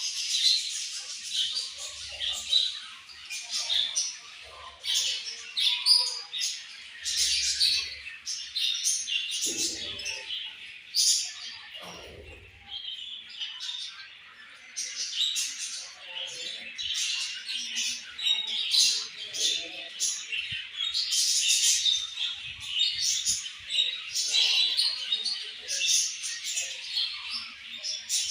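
A flock of budgerigars chirping and chattering, many short high calls overlapping without a break.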